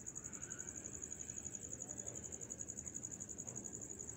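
A cricket trilling: a steady, high, rapidly pulsing note.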